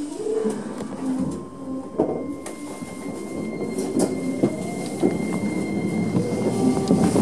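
Keisei electric commuter train running on the track, heard from on board: a steady rumble with a thin high whine from about two seconds in and a few sharp clicks from the wheels.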